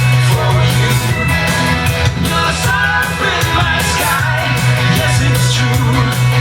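A rock song with a singer over a steady beat and a heavy bass line.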